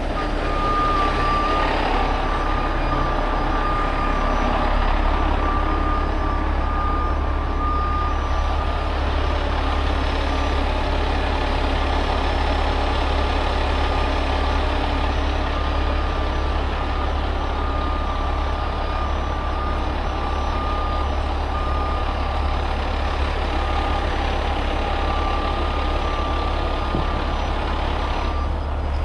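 Heavy rotator tow truck's diesel engine running steadily to power the crane lift, with a truck warning beeper sounding a steady, repeating beep.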